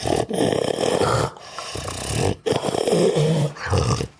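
Sleeping dog snoring loudly: two long snoring breaths, with a quieter breath between them.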